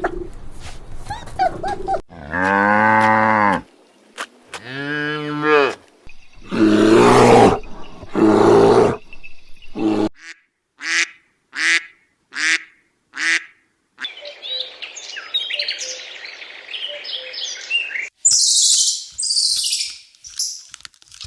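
A run of different animal calls one after another: two long, low calls like cattle mooing, two louder harsher calls, then a series of short rising chirps and a stretch of bird chatter, with high-pitched calls near the end.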